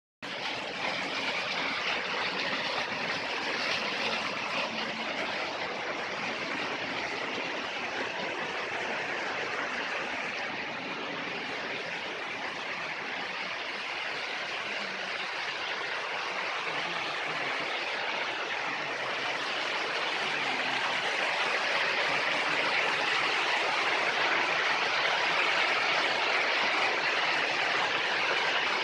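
Rushing water of a forest stream's small waterfalls and cascades: a steady splashing noise that eases a little in the middle and grows louder near the end.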